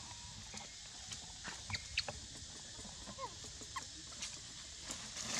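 Monkeys giving a few short, high squeaks and chirps, some rising and one sliding down in pitch, scattered through the middle of the stretch over a steady high hiss.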